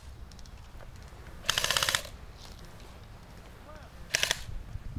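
Airsoft rifle firing two full-auto bursts, each a fast even rattle of shots. The first starts about a second and a half in and lasts half a second; the second, shorter, comes about four seconds in.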